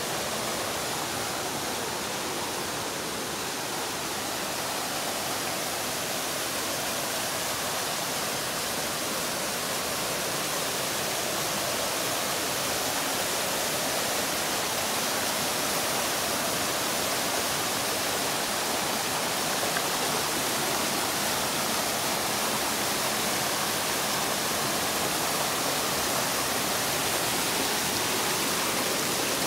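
Steady rush of a cascade waterfall and mountain brook pouring over granite ledges and rocks, growing a little louder toward the end.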